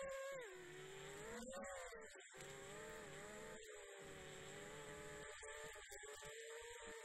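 Quadcopter drone's motors and propellers whining, the pitch dropping, rising again about two seconds in, then holding fairly steady as the throttle changes. Heard from the drone's own onboard camera, with the audio cutting out in several short gaps.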